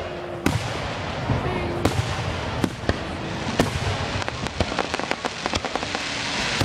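Fireworks going off: a run of sharp bangs, the loudest about half a second, two seconds, two and a half seconds and three and a half seconds in, over dense crackling that thickens near the end.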